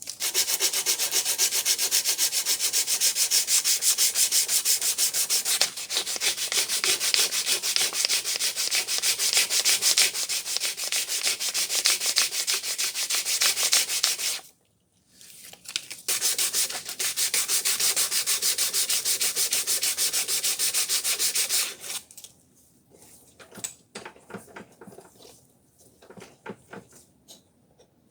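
Rust being scrubbed off the steel head of an old dengle hammer by hand with an abrasive, in rapid, even back-and-forth strokes. It stops briefly about halfway through, then resumes for several seconds. Near the end come a few light clicks and knocks as the work is handled.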